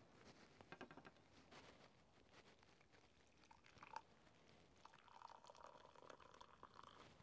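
Hot drink poured from an enamel kettle into a ceramic mug, a faint steady stream of liquid filling the cup from about five seconds in. A single light knock comes just before it.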